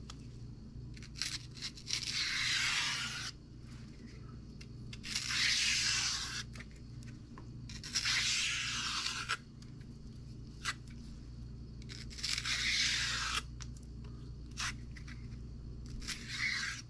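A kitchen knife strips the stringy outer skin off a spongy bạc hà (giant elephant ear) stalk, making a series of tearing strokes: four long pulls of about a second and a half each and a few short ones. A steady low hum runs underneath.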